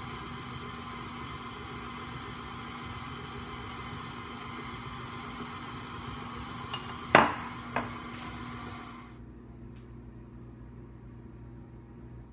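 Electric stand mixer running steadily with a hum. About seven seconds in, two sharp clinks of a spatula knocking against the bowls ring out, the first much the louder. The mixer sound stops about two seconds later.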